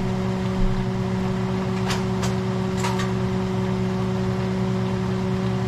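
A steady electric motor hum, with a few brief sharp clicks about two to three seconds in.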